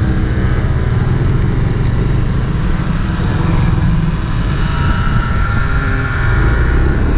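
Yamaha Aerox 155 scooter's single-cylinder engine and belt drive pulling as it speeds up from low speed, with a faint rising whine in the second half. Wind rumbles heavily on the microphone.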